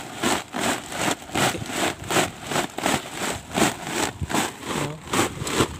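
Sea water splashing and sloshing in quick strokes, about three a second, as a woven sack is swished back and forth in the water alongside a small boat.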